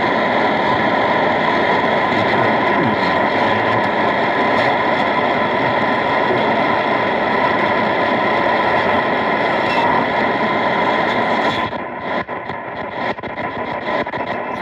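Shortwave radio receiver's speaker putting out a steady hiss of static and signal, with a few steady tones running through it. About twelve seconds in it turns quieter and crackly with clicks as the radio is retuned.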